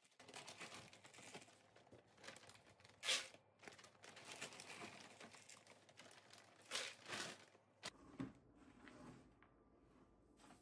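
Plastic bag of hardwood fuel pellets rustling as it is handled and pellets are scooped out of it with a measuring cup, with louder crackles of the bag about three seconds in and again around seven seconds. After about eight seconds it turns quieter, with a few soft knocks.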